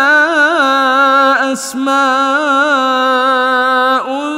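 A man's voice reciting the Quran in murattal style, drawing out one word over long, steady held notes with small melodic turns. There is a short hissed 's' about a second and a half in.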